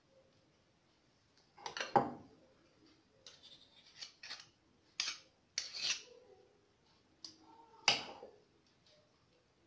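Kitchen utensils knocking and scraping against dishes in a series of short, separate sounds, the loudest about two seconds in and again near the end.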